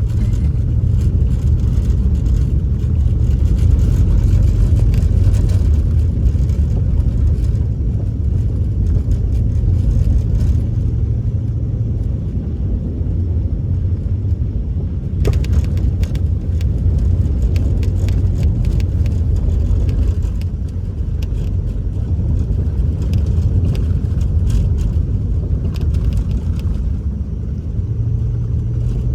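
Pickup truck driving: a steady low rumble of engine and road noise, with scattered small ticks and clicks over it.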